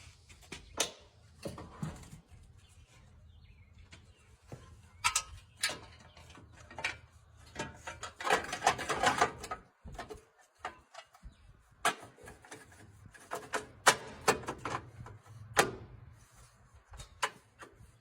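Irregular clicks, taps and clinks of hand tools and metal engine parts being handled while an ignition coil is fitted to a Honda small engine, with a longer stretch of scraping and rattling midway.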